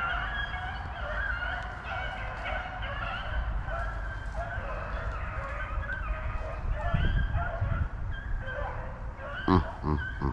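A pack of rabbit hounds baying on a running rabbit, many overlapping voices in full cry. There is a short, louder, closer sound about nine and a half seconds in.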